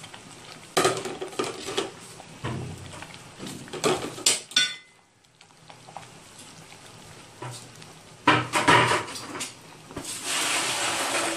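A spoon knocking and scraping against a metal cooking pot while groundnut soup with fresh vegetable leaves is stirred: scattered clinks and clatters, a short lull about halfway, then a steady hiss from the soup being stirred near the end.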